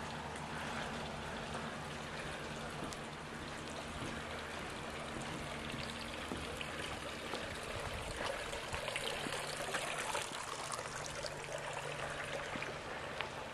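Steady trickle of running water in a backyard swimming pool, over a low steady hum, with a few light ticks about eight to ten seconds in.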